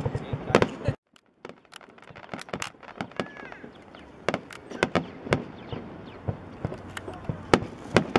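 Fireworks display: an irregular series of sharp bangs from shells launching and bursting, with a brief gap of silence about a second in.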